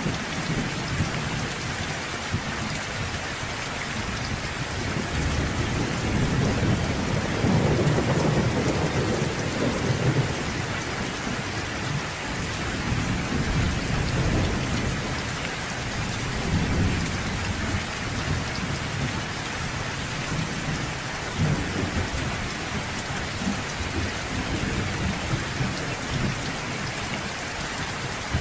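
Steady heavy rain hissing, with rolls of thunder rumbling low underneath; the biggest roll swells up about a quarter of the way in, and lighter rumbles come and go after.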